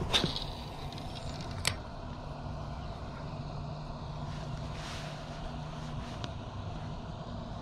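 A spinning rod being cast: a short swish as the arm swings, then a single sharp click about a second and a half later as the reel's bail snaps closed. A steady low hum runs underneath.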